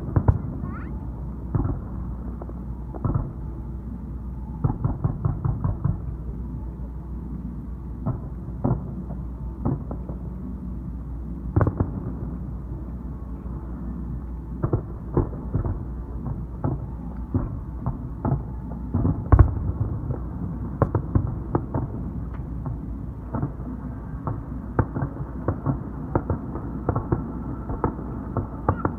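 Aerial fireworks shells bursting: an irregular series of muffled bangs and pops, some in quick runs of several a second, the loudest about nineteen seconds in, over a steady low rumble.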